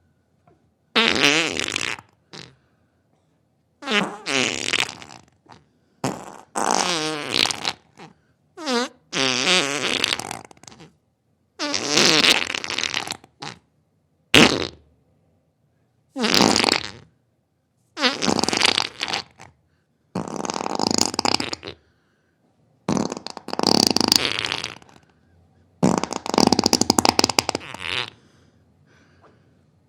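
A series of about a dozen farts, each a separate buzzy, sputtering burst lasting from a fraction of a second to about two seconds, with short silences between them.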